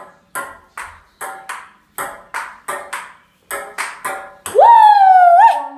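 Table-tennis rally: a plastic ball clicks back and forth off rubber paddles and a glass-topped table, about three hits a second. Then, with the play ending, a player lets out a loud high-pitched yell lasting about a second.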